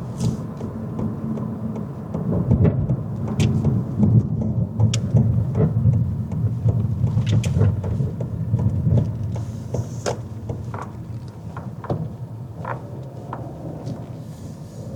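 Car being driven, heard from inside the cabin: a steady low engine and road rumble with a few scattered light clicks and knocks.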